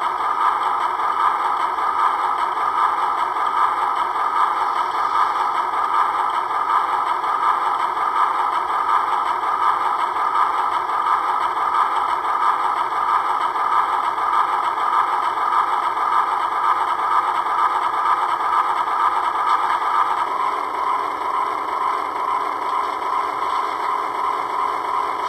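HO scale Broadway Limited Paragon 4 PRR E6 4-4-2 model steam locomotive running on a rolling test stand as its throttle is stepped up; a steady running sound that turns a little quieter and changes character about 20 seconds in.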